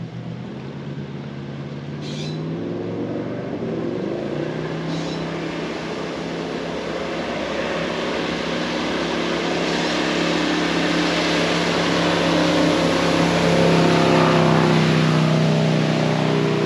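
An engine running and drawing steadily nearer, growing louder across the whole stretch, its pitch rising briefly about three seconds in.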